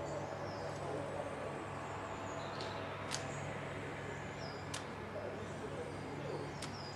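Small birds chirping and whistling: short high notes repeated every second or so, with a few sharp high ticks, over a steady low hum and hiss.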